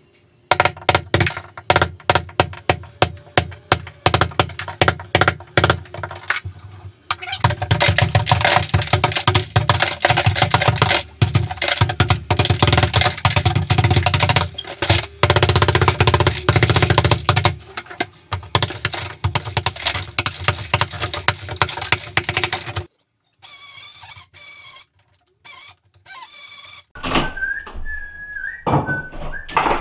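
Hammer blows on a chisel, about two or three a second. After about seven seconds they give way to a long dense run of scraping and knocking as old plaster is chiselled off wooden lath. Near the end it quietens.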